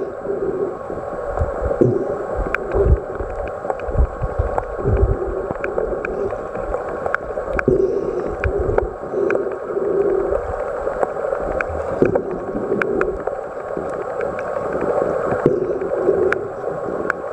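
Muffled underwater noise as heard by a submerged camera: a steady rush of water with many small sharp clicks and low thumps, and a lower hum that comes and goes every second or so.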